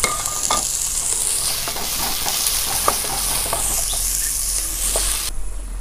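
Chopped capsicum and onions sizzling in hot oil in a metal pot, stirred with a wooden spatula, with a few light taps. The sizzle drops away suddenly near the end.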